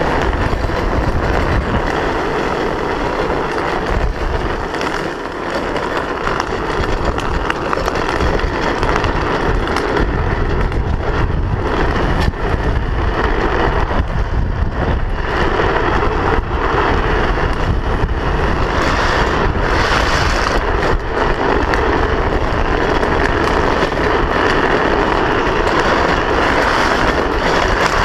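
Steady, loud wind rushing over a helmet-mounted camera, mixed with the road noise of a drift trike's hard plastic rear wheels rolling and sliding on asphalt at speed.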